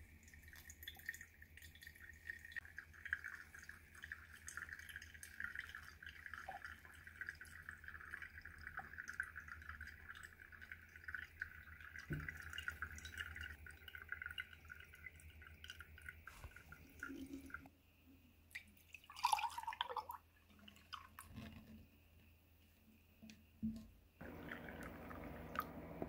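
Brewed coffee dripping through a paper pour-over filter into a glass coffee server, a steady patter of small drips and bubbling grounds. About two-thirds through there are a few louder knocks of handling. Near the end coffee is poured into a ceramic cup.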